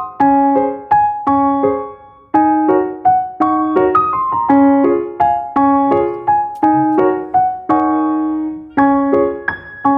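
Background music: a gentle piano melody with notes struck in a steady rhythm.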